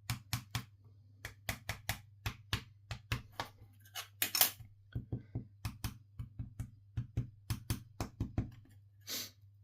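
A finger tapping repeatedly on a carbon-fibre RC car chassis part held down on a bench, about three sharp taps a second. This is a test for a bent part: a dull thud marks where it has a slight bend, a higher-pitched tap where it is flat.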